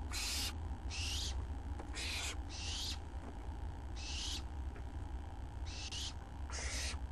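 Barn owl nestlings giving hissing food-begging calls: about seven rasping hisses, each under half a second long, with uneven pauses between them. A steady low hum runs underneath.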